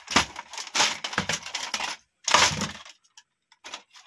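Plastic and metal parts of an HP multifunction printer clattering and knocking as it is pulled apart by hand. There is a louder clatter a little past two seconds in, then only a few light clicks.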